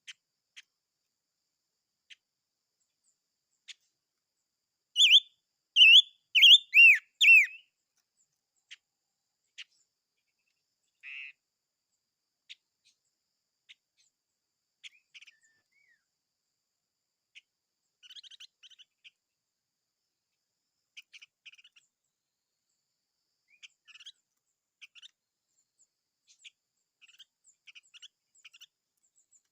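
Small songbird, the 'chim ngũ sắc' (five-colour bird), calling. Scattered short chirps, a loud run of about five quick downward-sliding notes about five seconds in, a short buzzy note, then soft twittering through the second half.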